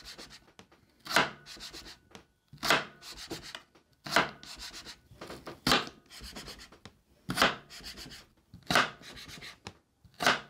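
A stainless kitchen knife chopping straight down through a white root vegetable and striking a wooden cutting board, about seven chops at roughly one every one and a half seconds. Each chop is followed by a short scrape of the edge rubbing on the board, the habit that dulls and damages the blade edge.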